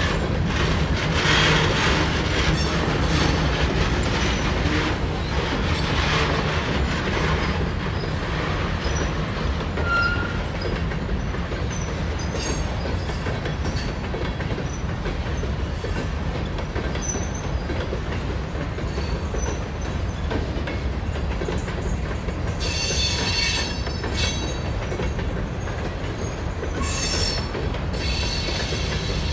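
CSX freight train of covered hopper cars rolling past: a steady low rumble of wheels on rail, with two short bursts of high wheel squeal near the end.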